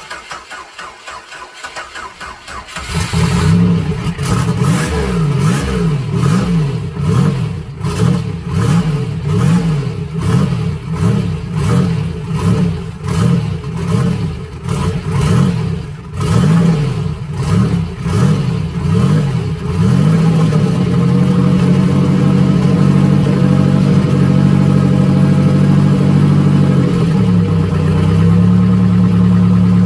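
Rebuilt 3400 pushrod V6 in a Pontiac Fiero catching about three seconds in after a hard start. Its speed surges up and down about once a second, then settles to a steady idle that drops a little near the end. It is untuned for its new turbo cam.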